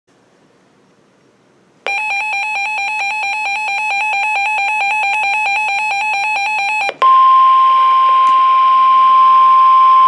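Reecom weather alert radio sounding an alarm: about two seconds in, a loud, fast-warbling two-tone beep starts and lasts about five seconds. It then gives way to the steady single-pitch NOAA Weather Radio warning alarm tone over radio hiss, signalling that a warning broadcast is about to follow.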